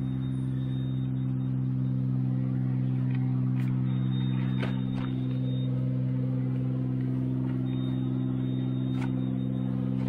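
An engine idling steadily, with a few light clicks over it.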